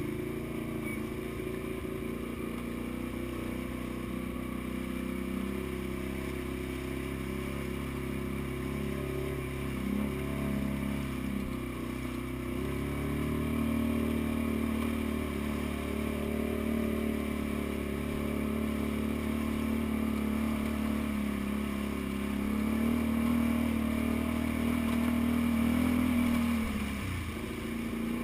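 Can-Am Renegade 500 ATV's single-cylinder engine running at steady part throttle while wading up a shallow creek. The revs climb over the last few seconds, then drop off sharply near the end.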